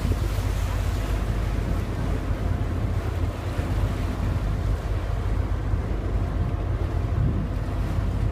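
Steady low rumble of a boat under way, with wind buffeting the microphone.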